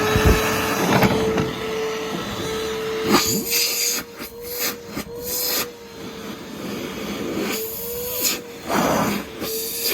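Numatic Hetty vacuum cleaner running with a steady motor whine, its pitch wavering slightly, and several short rushes of air as the suction is tested.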